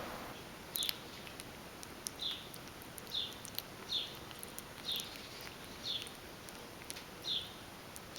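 An animal's short high-pitched calls, repeated about once a second, each falling slightly in pitch, with faint clicks scattered between them.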